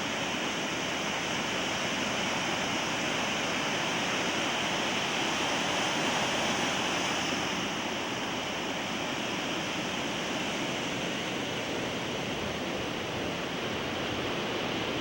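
Rough ocean surf: a steady rush of breaking waves and churning water, swelling slightly about halfway through.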